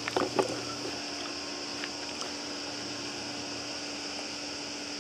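Steady hum and hiss of background noise, with a brief louder sound in the first half-second and a couple of light clicks about two seconds in, typical of metal spoons touching ceramic bowls.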